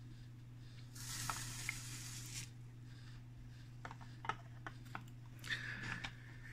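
Faint hiss of table salt trickling through a plastic funnel into a PET bottle, then a few light plastic clicks and a short scrape as the funnel is lifted off and the cap is put on.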